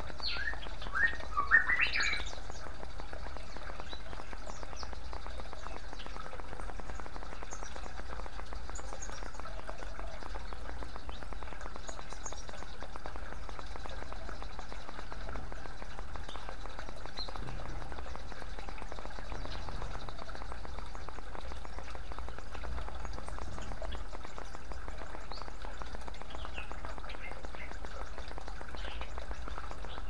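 Water trickling and splashing steadily from bamboo spouts into a clay bowl and stone basin, with small birds chirping over it. The chirps are loudest about one to two seconds in, scattered and faint in the middle, and return near the end.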